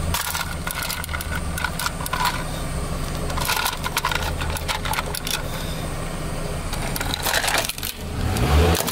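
Car engine idling with light plastic clicks and rattles as a plastic toy train is set down on gravelly asphalt. Near the end the engine revs with rising pitch as the car creeps forward and its tyre rolls onto the toy, with a loud crunch of plastic.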